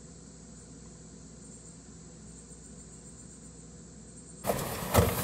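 Faint, steady low hum and hiss of background noise. About four and a half seconds in it cuts abruptly to louder handling noise with a few sharp knocks.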